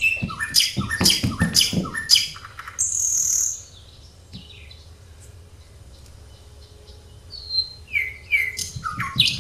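Birds chirping: a quick run of short high chirps and downward-sliding calls, falling away to a faint background for a few seconds in the middle and starting again near the end.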